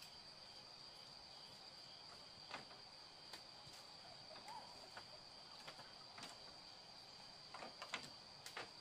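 Faint, steady high-pitched insect drone, with scattered soft clicks and knocks that bunch together near the end.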